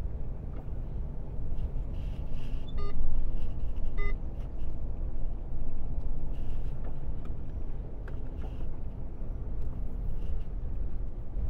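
Steady engine and road drone inside an Iveco truck's cab as it drives slowly, with two short electronic beeps about a second apart, a few seconds in.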